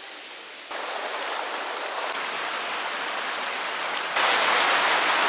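Rushing creek water, a steady hiss-like noise that jumps abruptly louder twice, about a second in and near the end.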